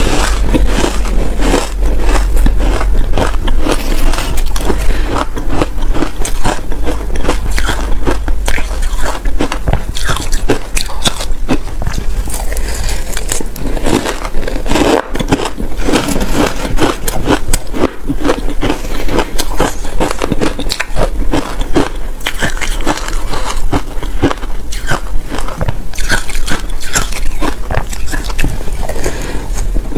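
Shaved ice being bitten and chewed close to the microphone: a dense, continuous run of loud crackling crunches.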